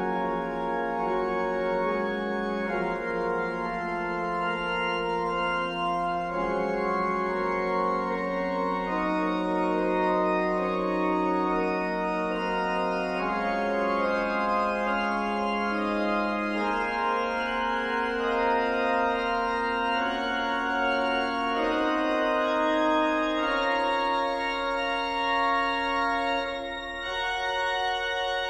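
Pipe organ playing slow, held chords that change every second or two over a bass line stepping downward, briefly softer near the end before the next phrase.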